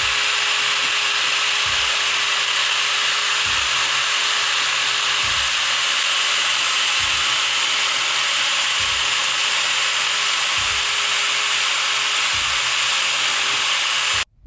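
Handheld electric power tool running steadily with a high hissing whir and a soft low thump about every second and a half, cutting off abruptly just before the end.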